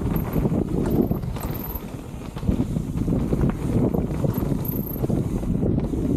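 Rocky Mountain Altitude mountain bike rattling down a rough dirt singletrack: a dense, irregular run of knocks from the tyres, chain and frame over the bumpy ground, with wind rumbling on the microphone.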